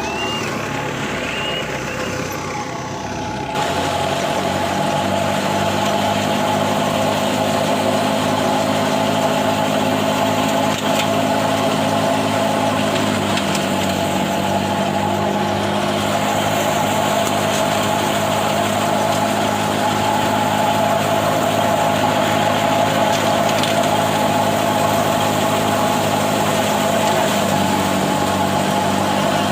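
Heavy vehicle engine running steadily, getting louder with an abrupt change about three and a half seconds in and dropping slightly in pitch near the middle.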